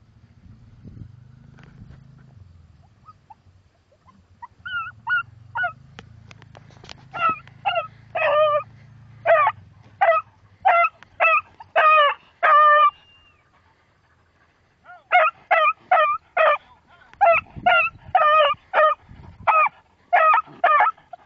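Beagle baying while trailing a rabbit: a run of short, high yelps about two a second. They start about four seconds in, stop briefly past the middle, then go on.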